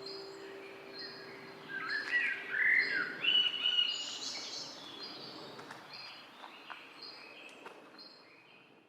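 Songbirds chirping, with repeated short high chirps and a louder burst of warbling song about two seconds in; the sound fades out toward the end.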